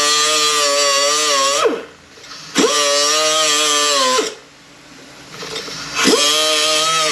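A small high-speed power tool, such as a grinder, run in short bursts of a second and a half to two and a half seconds, three times. Each burst spins up quickly, holds a steady whine with a hiss over it, and winds down in pitch when released. It is being used to cut a groove deeper and wider in a transmission part.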